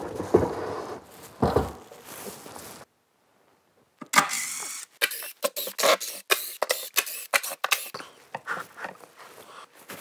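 A run of sharp clicks, knocks and light scrapes from cordless tools and cabinet hardware being handled, broken by about a second of silence near three seconds in, with the clicks coming thick and fast for a few seconds after.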